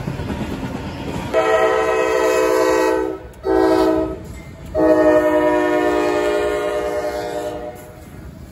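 Freight locomotive air horn sounding three chords over the rumble of a passing train: a long blast, a short one, then another long one.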